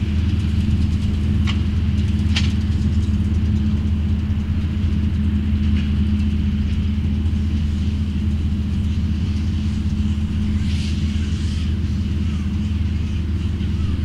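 Fendt tractor running steadily as it pulls a McHale Fusion round baler-wrapper through the rows, with a faint steady high whine over the engine drone and a few sharp clicks about two seconds in.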